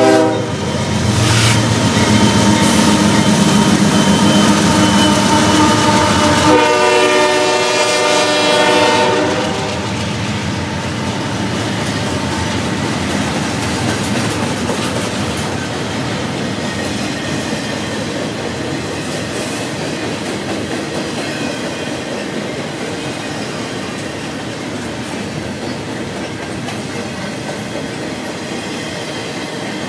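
CSX freight train passing close by: the GE diesel locomotives go by at the start, a train horn sounds for about three seconds a little after six seconds in, then double-stack intermodal well cars roll past with steady wheel clatter.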